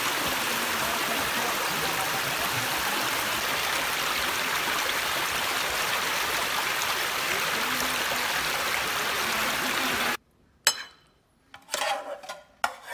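Shallow stream rushing over rocks: a steady water noise that cuts off suddenly about ten seconds in. A few short knocks follow near the end.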